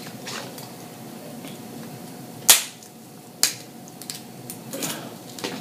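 Crab leg shells cracked and snapped apart by hand: a loud sharp crack about two and a half seconds in, a second about a second later, and a few softer shell clicks around them.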